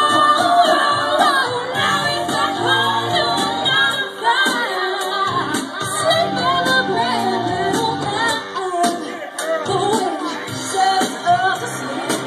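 A woman singing karaoke over a pop backing track with a steady beat.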